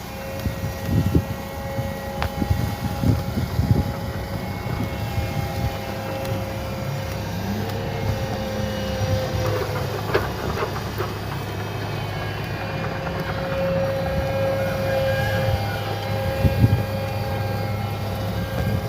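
Bulldozer running steadily while it pushes and levels sand, with irregular knocks and clanks, most of them in the first few seconds and again near the end.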